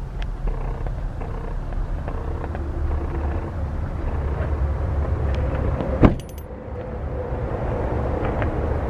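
Pickup truck engine idling, a steady low rumble, with one loud thump about six seconds in as the cab door is shut.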